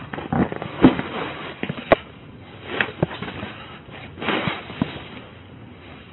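Rustling and scraping as stored household items are pushed aside and handled by hand, with several sharp knocks and clacks of objects bumping together.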